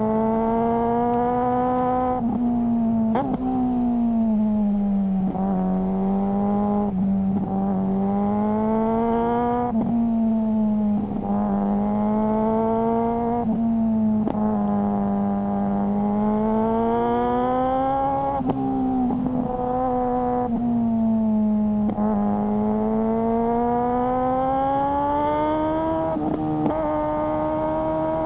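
Suzuki GSR600 inline-four motorcycle engine through a GPR Ghost aftermarket exhaust, under way. The revs climb steadily, then drop sharply at each quickshifted gear change, with a short crack at each shift. This happens repeatedly.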